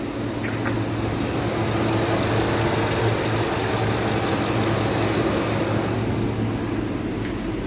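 Idling engine running with a steady low hum.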